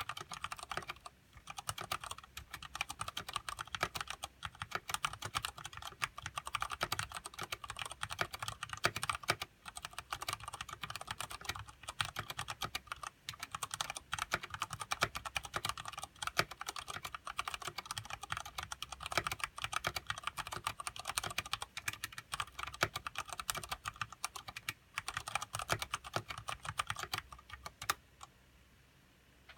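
Fast, continuous typing on a Ducky Shine Mini mechanical keyboard with tactile Cherry MX Brown switches and thick PBT keycaps, broken by a few short pauses. The typing stops shortly before the end.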